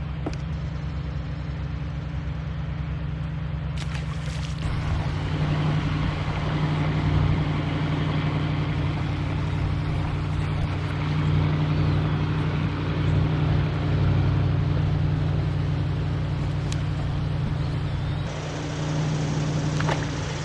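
Continuous rushing of river water and wind noise on a kayak-mounted camera, with a steady low hum underneath. The rushing gets louder about four and a half seconds in as the kayak moves into faster, rippled water.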